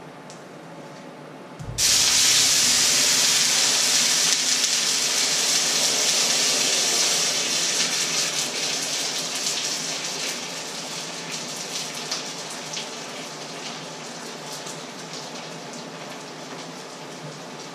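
Water poured from a jug into a very hot pan on the stove: a sudden loud hiss of flash-boiling steam about two seconds in, with crackling, slowly dying down.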